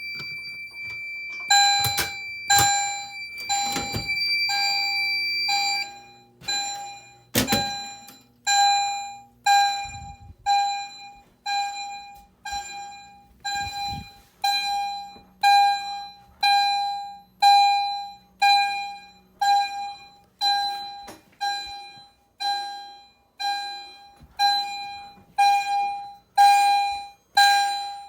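EST Genesis chime strobes sounding in alarm after a manual pull station is pulled: one electronic chime, repeating about three times every two seconds, each ding ringing down. For the first six seconds a steady high electronic tone sounds with it, and there is a sharp knock about seven and a half seconds in.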